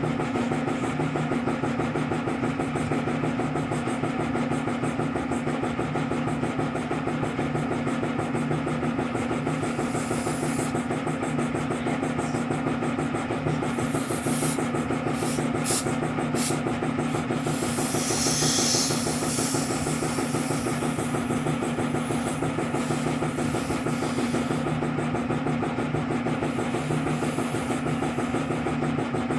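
A motor or engine runs with a steady hum. Between about ten and nineteen seconds in come several short, sharp hisses and then one longer hiss.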